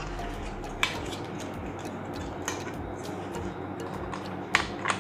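Hard plastic toy track pieces clicking and knocking as they are slid together: a sharp click about a second in, a fainter one midway, and two more close together near the end.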